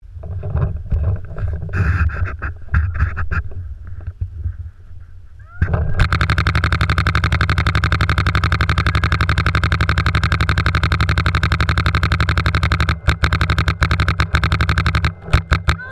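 Paintball marker firing in a steady, very fast stream of shots, many a second, starting about six seconds in, then in shorter strings with brief breaks near the end. Before the firing starts there is only softer, uneven noise.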